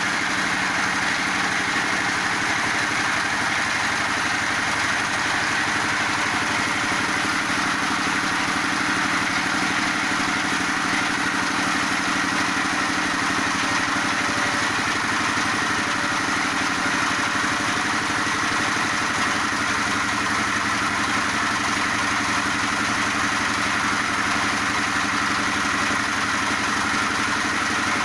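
Feed pellet machine running steadily under its drive engine, a constant mechanical hum and whirr.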